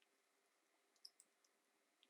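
Near silence, with a few faint, short clicks about a second in.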